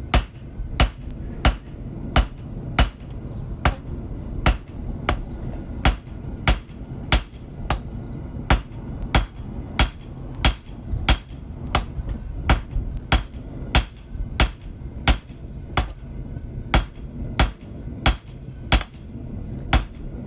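Blacksmith's hammer striking hot steel on an anvil in a steady rhythm, about three blows every two seconds, each with a short metallic ring. The steel is being drawn out, hammered on alternate sides to thin it to a point.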